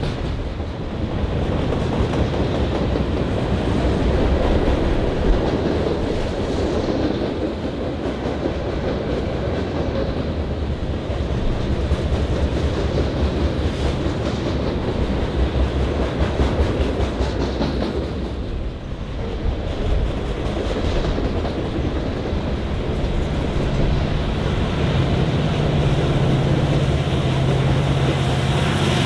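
Freight train rolling past, its steel wheels clattering over the rails in a continuous clickety-clack. A low steady hum comes in near the end.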